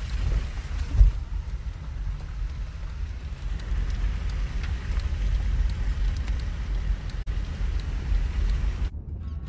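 Low rumble of a vehicle driving on a wet, icy road, heard from inside the cabin, with a single thump about a second in.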